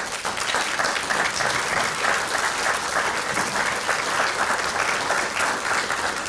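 Audience applauding, steady and sustained.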